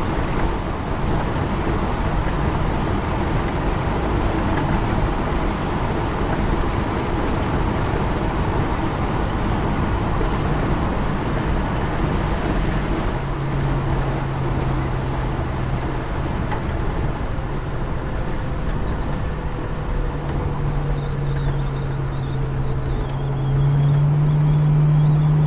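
Car engine and tyre noise heard from inside the cabin while driving on an open road. A steady engine hum grows stronger about halfway through and rises in pitch and loudness near the end.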